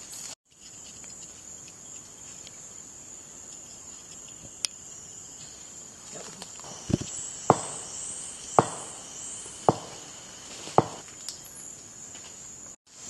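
Rainforest insects, cicadas or crickets, buzzing steadily at a high pitch. From a little past halfway, five sharp knocks come roughly a second apart.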